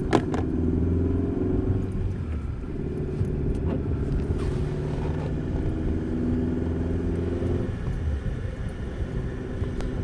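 Car engine and road noise heard from inside the cabin while driving slowly along a street, a steady low hum whose note shifts a little about eight seconds in.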